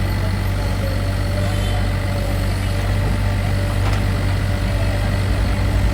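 Mini excavator's diesel engine running steadily with a deep, even drone, and a faint knock about four seconds in.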